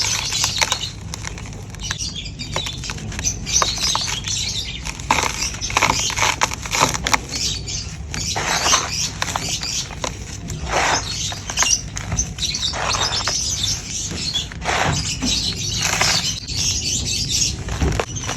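Soft, sandy, dry charcoal crumbling: a continuous run of irregular gritty crackles and crunches.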